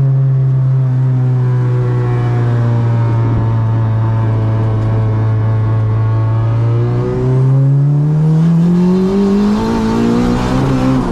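Turbocharged, engine-swapped Honda Brio's engine holding a steady note for about seven seconds, then rising in pitch as it accelerates through the last few seconds. A faint high whistle climbs alongside it.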